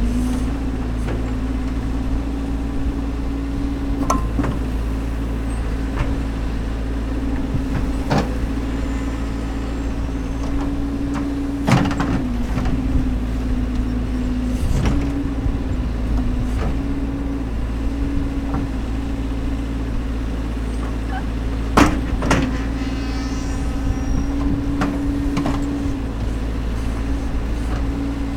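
Caterpillar backhoe loader's diesel engine running steadily while the backhoe arm digs, its pitch dipping and rising a little as the load changes, with several sharp clanks, the loudest about twelve and twenty-two seconds in.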